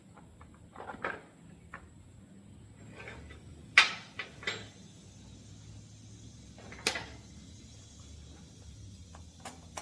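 A few sharp clicks and knocks of hand tools and small metal parts being handled while taking apart a small Stihl chainsaw, the loudest about four seconds in.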